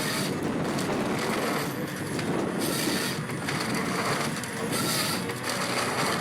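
Komatsu 951 forest harvester with its C144 head working a tree: dense, continuous machine and wood-crushing noise with surges of high hiss about once a second as the trunk is fed through and processed.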